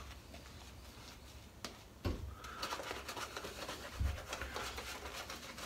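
Shaving brush scrubbing lather over a scalp: a soft, scratchy crackle of the lather being worked, starting about two seconds in.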